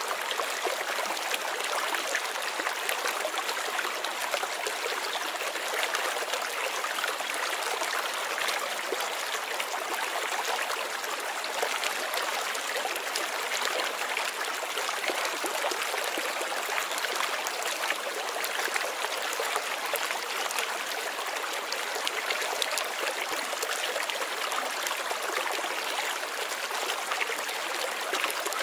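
Water running steadily over stones in a shallow stream, a continuous babbling trickle with no pauses or changes.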